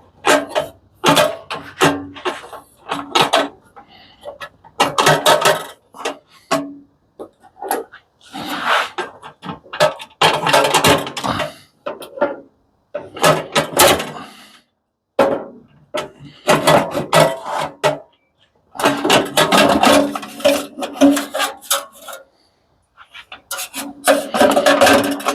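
Metal parts of an industrial coffee machine being worked loose and handled during teardown: irregular bursts of clattering and scraping, a second or two each, with short silences between.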